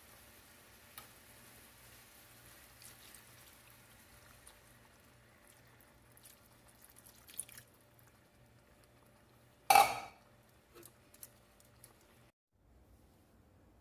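Faint liquid sounds from chicken broth in a cast-iron skillet, with a few small drips and ticks. About ten seconds in, one loud, sharp clank of metal tongs against the skillet, followed by a couple of light clicks.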